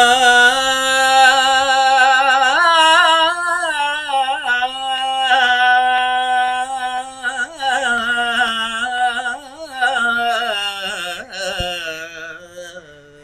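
A man singing a long, drawn-out melismatic ghazal phrase with no accompaniment. He holds notes with wavering ornaments, steps up in pitch about two and a half seconds in, and trails off near the end.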